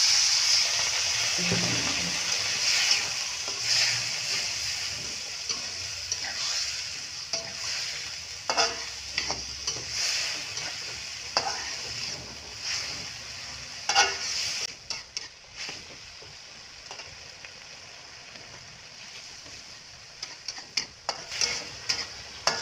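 Water poured into a hot wok of frying green chillies sizzles loudly, the hiss dying away over about fifteen seconds as it stops spitting. A metal spatula stirs and scrapes the wok, with scattered clinks.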